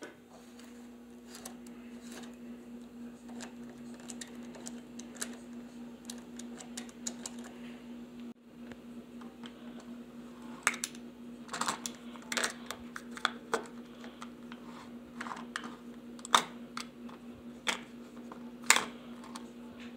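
Hard plastic toys handled on a wooden table: irregular clicks and taps as parts are opened, snapped shut and set down, louder and more frequent in the second half. A steady low hum runs underneath.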